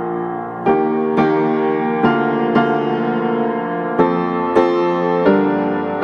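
Background piano music: a slow piece with notes and chords struck every half second to a second, each ringing on.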